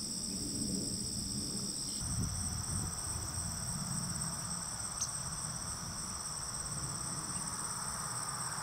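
A steady chorus of insects trilling at two high pitches, a late-summer marsh chorus of crickets and katydids.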